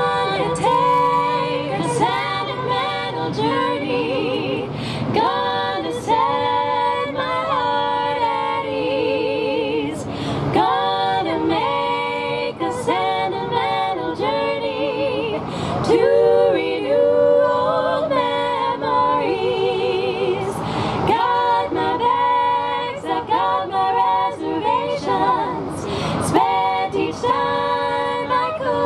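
Female vocal group singing a cappella in close harmony, heard over public-address loudspeakers, with several voices holding notes with a wavering vibrato.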